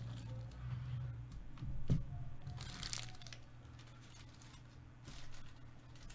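Handling sounds at a card-breaking table: a sharp knock about two seconds in, then a short crinkle of a foil trading-card pack wrapper, over a steady low electrical hum.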